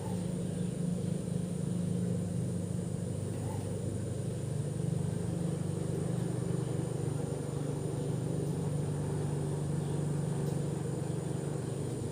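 CNC plasma cutter's gantry drive motors running during the machine's homing sequence, a steady low hum whose pitch shifts a little a few times as the axes move.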